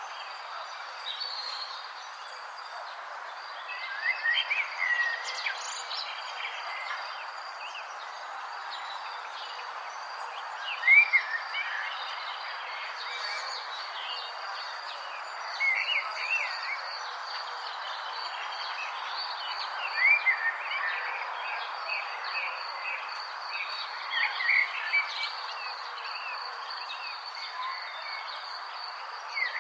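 Forest birds chirping in short bursts of quick up-and-down notes every few seconds, the loudest about a third of the way in, over a steady hiss and a continuous high insect drone.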